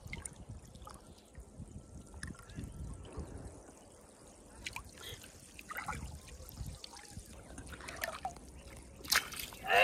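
Small water sounds at the pond's surface, faint trickling and dripping with scattered light ticks, then about nine seconds in a sudden loud splash as a hooked fish is pulled thrashing through the water.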